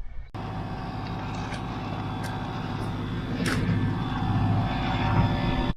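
Steady mechanical drone, engine- or motor-like, with a low hum and several held tones, that cuts in abruptly just after the start and stops abruptly at the end; a falling whistle-like sweep sounds about three and a half seconds in.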